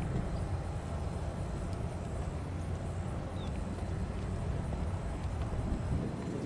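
Outdoor airfield ambience: a steady low rumble with gusty buffeting at the very bottom, and no distinct event standing out.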